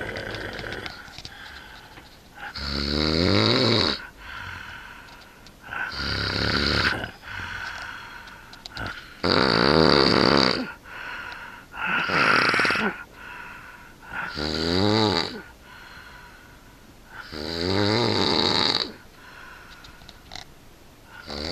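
A person snoring loudly and rhythmically, one rasping snore every two and a half to three seconds, each lasting about a second.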